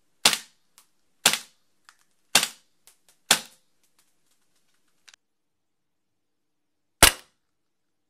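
VFC FNX-45 Tactical gas blowback airsoft pistol, fitted with a suppressor, firing single shots: four sharp cracks about a second apart, each with the slide cycling. A faint tick follows each of the first three. One more shot comes about seven seconds in.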